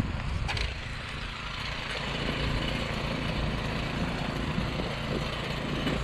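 Troy-Bilt Storm 2410 two-stage snowblower's single-cylinder PowerMore engine running steadily while it clears deep snow; it gets a little louder about two seconds in.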